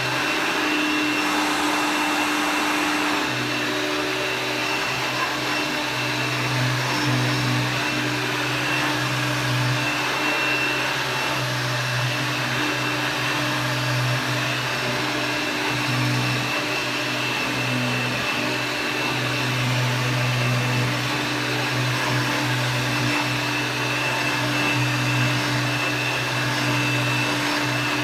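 A 1994 Dirt Devil Plus upright vacuum cleaner running steadily and loud: a constant motor drone with a thin high whine on top and a low hum that swells and drops every few seconds.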